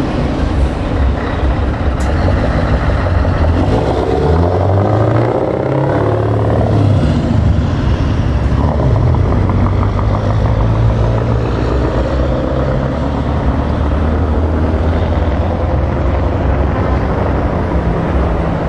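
Scania 164L T-cab V8 diesel truck accelerating away under load, its engine note rising and falling through the gears, then settling to a steady low rumble.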